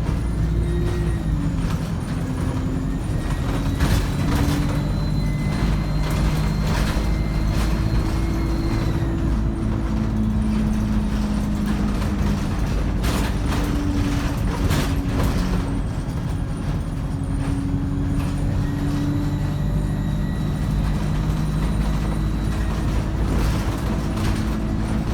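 ADL Enviro 200 bus with a three-speed Voith automatic gearbox under way: the diesel engine's pitch shifts up and down, and a high turbo whine rises and fades twice. Occasional knocks and rattles come from the bus body.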